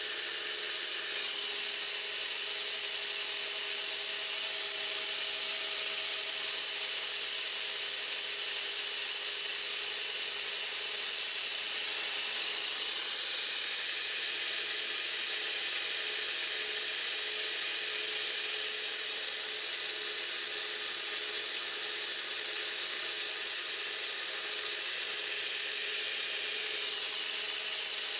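9x20 benchtop metal lathe running steadily with a faint whine, its spindle turning a machined part while a strip of abrasive cloth is held against it for a steady hiss.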